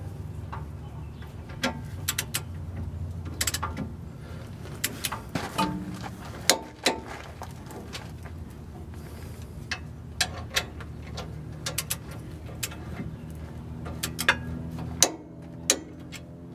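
A torque wrench and hand tools working the rear brake caliper bracket bolts on a pickup, giving scattered sharp metallic clicks and knocks at irregular intervals as the bolts are tightened to about 80 ft-lb. A steady low hum runs underneath.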